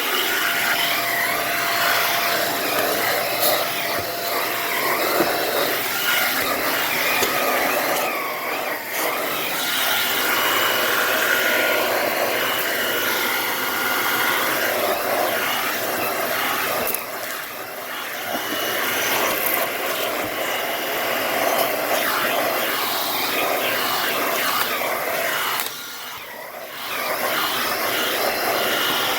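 Shark upright vacuum cleaner running steadily while vacuuming carpeted stairs, its level dipping briefly three times.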